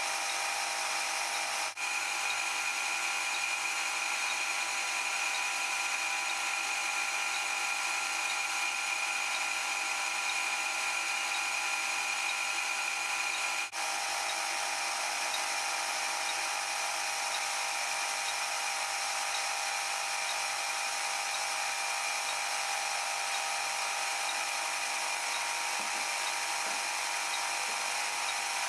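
Small electric motor of a workshop power tool running steadily with a high whine, dipping for an instant twice.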